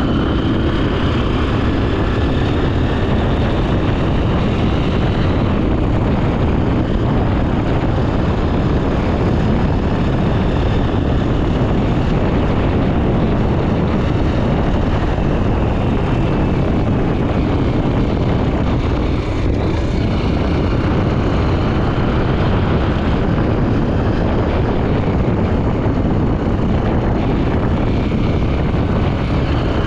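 Honda XR 250 Tornado's single-cylinder four-stroke engine running steadily under way, mixed with steady wind rush over the helmet-mounted camera's microphone.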